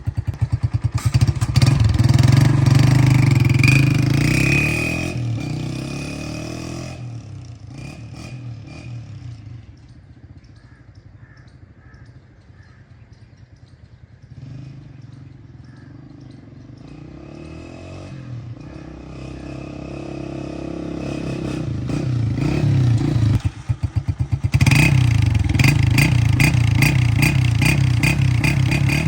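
Honda 125 motorcycle's single-cylinder four-stroke engine, fitted with an aftermarket whistler silencer, pulling away in gear. Its exhaust note fades into the distance, then grows loud again as the bike comes back near the end.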